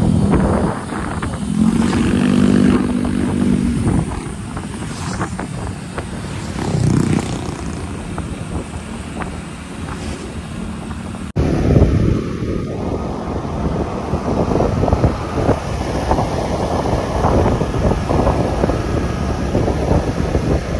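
Motor scooter riding along a road: engine hum under wind noise on the microphone, with a steadier pitched engine drone in the first few seconds. About eleven seconds in the sound changes abruptly to heavier, fluttering wind buffeting over the engine.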